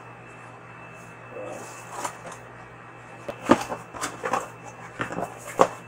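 Cardboard shipping box being opened by hand. The flaps are pulled apart with a series of sharp rustles and snaps, mostly in the last two and a half seconds.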